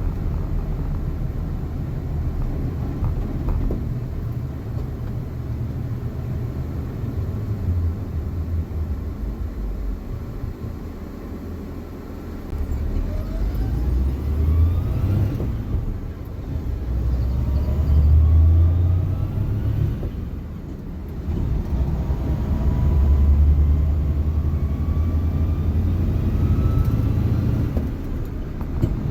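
Suzuki JA71 Jimny under way, its drivetrain running with a low rumble and a faint whine that rises in pitch, breaks off and rises again three or four times. The owner puts this whine down to a failed transmission bearing.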